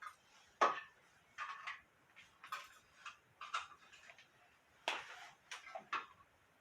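Irregular clicks and taps of small hard parts and tools being handled while a heat detector is wired into a fire-alarm circuit. There are about a dozen sharp ticks over a few seconds, and the loudest comes just after the start.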